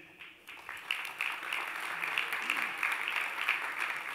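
Audience applauding: clapping starts about half a second in, builds within a second, and holds steady.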